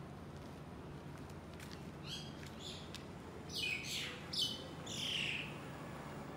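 A bird calling: about five short, high calls that slide downward in pitch. The first two are faint, and the last three, a little later, are louder.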